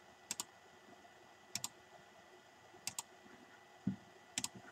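Computer mouse clicking: four quick double clicks spaced about a second and a half apart, with a dull low thump just before the last pair.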